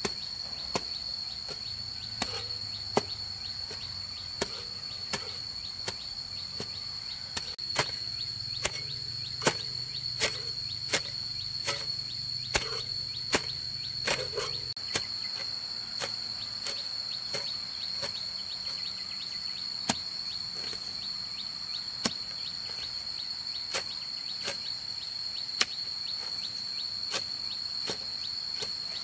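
Hand hoe's metal blade chopping into grassy soil, a sharp strike every second or so, coming quicker in the first half and more spaced out later. A steady high insect drone runs underneath.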